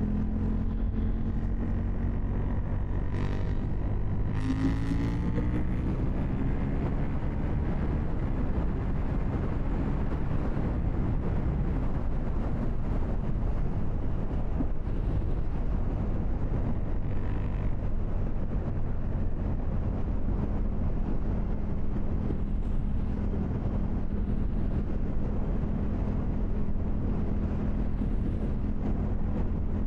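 KTM 790 Duke's parallel-twin engine running steadily under way, with wind rushing over the microphone. The engine note glides briefly about four seconds in, then holds even.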